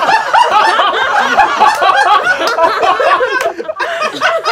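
A small group of people laughing hard together, many voices overlapping in loud laughs and chuckles.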